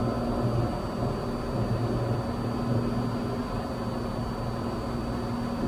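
Cessna 182's piston engine and propeller droning steadily in cruising flight, heard from inside the cabin.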